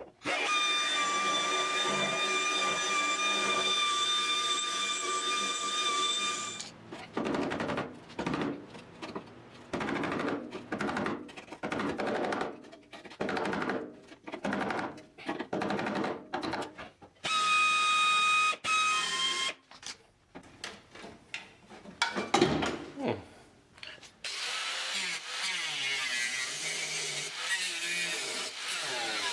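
Power tool cutting rusted sheet steel out of a car's sill and floor: a steady high whine for about six seconds, then a run of short on-off bursts, another brief whine, and a steadier rasping noise near the end.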